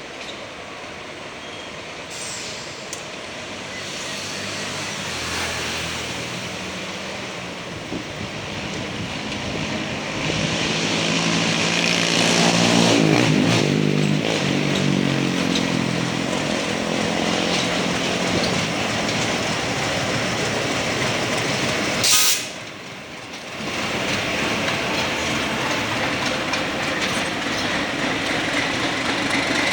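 ALCO MLW RSD-35 diesel locomotive pulling away with a passenger train, its engine revving up as it builds power, then running steadily under load. A brief sharp bang about two thirds of the way through.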